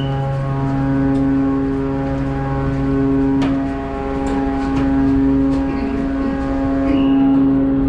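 Steady low engine drone with several even pitched tones, unchanging throughout. A single click about three and a half seconds in, and short high chirps near the end.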